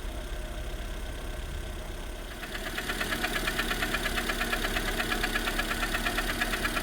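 Lada Granta's four-cylinder 11186 engine idling steadily. About two and a half seconds in it gets louder and a fast, even ticking comes up over the running.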